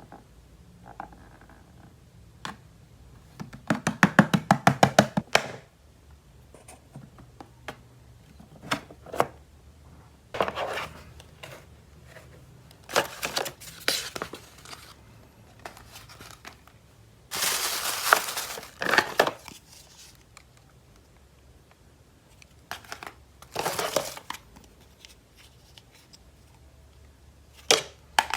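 Toy packaging being handled and opened: plastic crinkling and tearing in several separate bursts, with a quick even run of clicks about four seconds in.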